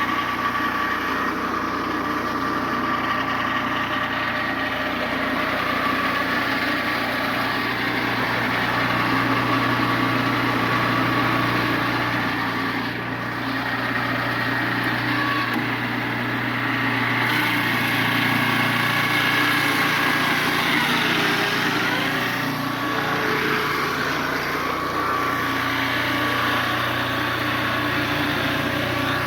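Engine of a Turbosawmill circular sawmill running steadily, its pitch sagging briefly and recovering about twenty seconds in.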